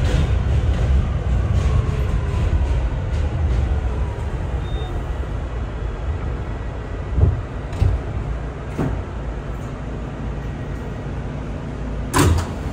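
R211A subway car braking into a station: a low rumble with a falling whine from the traction motors as the train slows to a stop. It then stands with a few short knocks, and a sharp loud burst near the end as the doors open.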